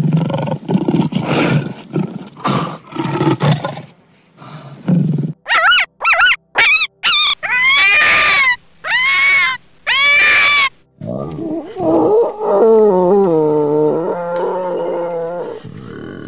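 A leopard growling and roaring in rough pulses for about four seconds, then a fox calling: a quick run of short high yelps that rise and fall, three longer arched screams, and from about eleven seconds lower, wavering calls that step down in pitch.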